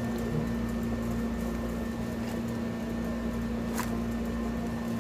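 Steady machine hum with constant background noise, and a single sharp click close to four seconds in.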